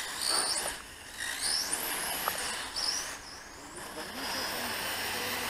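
Electric motor and drivetrain of a 1/8-scale on-road RC car whining, rising sharply in pitch about three times in the first few seconds as the car accelerates, over a steady high hiss.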